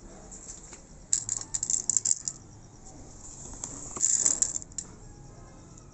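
Dry cat kibble dropped by hand into a plate, the pellets rattling and clicking against it in two quick flurries, one about a second in and another near four seconds.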